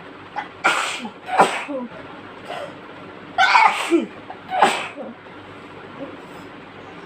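A woman's sneezing fit, set off by chikni powder: four loud sneezes in two pairs about a second apart, with softer breaths and catches in between.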